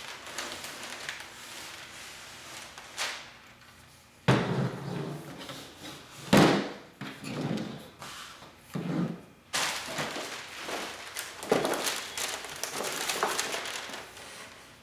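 Irregular handling noises: several sharp knocks and thunks with scraping and rustling between them, as hard plastic and metal items and their packaging are moved about.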